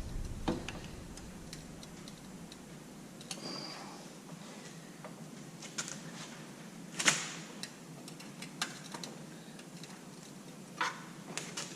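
Scattered clicks and light scrapes of a screwdriver working a dry headlight screw that will not turn, with one sharper click about seven seconds in.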